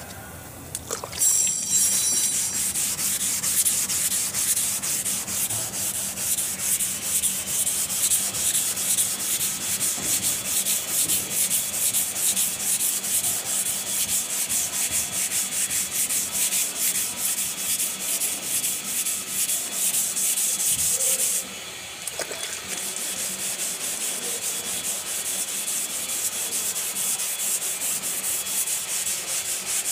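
120-grit sandpaper on a hand sanding block rubbed rapidly back and forth over hardened body filler on a car panel, stroke after stroke. It starts about a second in and breaks off briefly about two-thirds of the way through before going on.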